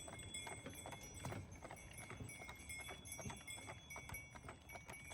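Bells on a carriage horse's harness jingling in time with its steps, with soft hoofbeats, as the horse pulls the carriage.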